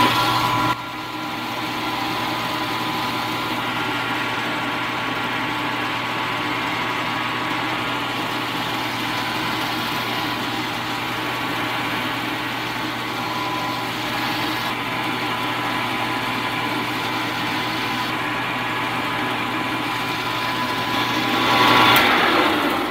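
Benchtop mill-drill's spindle motor running steadily with a constant hum and a spinning edge finder in the chuck, while the X-axis is fed slowly toward the part. Near the end the motor is switched off and the hum drops away.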